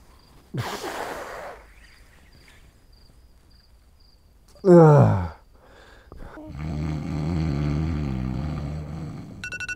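A man with a bad head cold making sleep noises: a noisy sniffling breath, then a loud groan that slides down in pitch, then a long, low, congested snore. Near the end an electronic alarm starts beeping rapidly.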